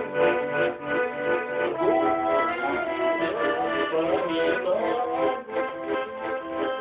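Garmon, a Russian button accordion, playing a melody over held chord tones.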